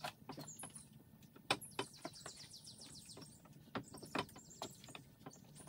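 Scattered sharp metal clinks and knocks of hand tools and bolts as the outboard motor is unbolted from its jack plate, the loudest about a second and a half in. Behind them a bird sings runs of rapid high chirps.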